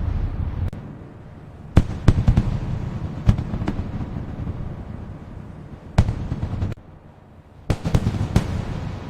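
Aerial fireworks bursting: a series of sharp bangs over a continuous low rumble. There is a short lull about three-quarters of the way through, then a quick cluster of bangs.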